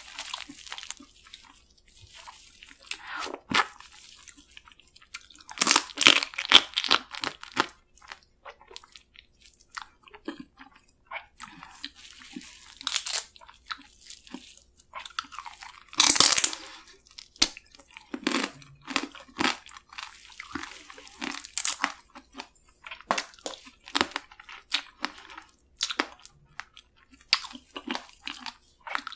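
Eating spicy marinated raw crab (yangnyeom gejang): crab shell crunching and cracking, and wet chewing, in irregular bursts with pauses between. The loudest bursts come about six and sixteen seconds in.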